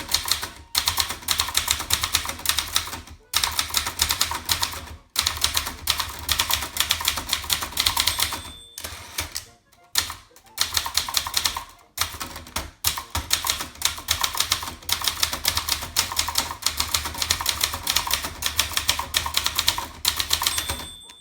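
Keys of a 1980 Brother Charger 11 portable manual typewriter striking the platen in quick runs, with short pauses between bursts. The end-of-line bell dings about eight and a half seconds in and again near the end.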